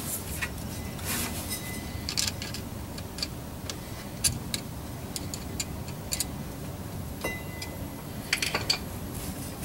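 Irregular metallic clicks and clinks of hand tools and hose clamps being worked on a rubber fuel line, with a couple of brief high squeaks.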